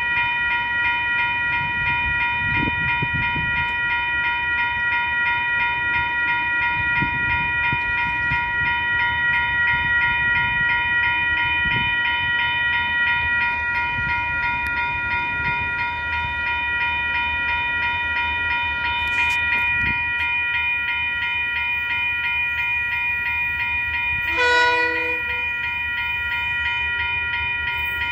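Level crossing warning bells ringing steadily over the low rumble of an approaching DL-class diesel-electric locomotive. The locomotive gives one short horn blast near the end.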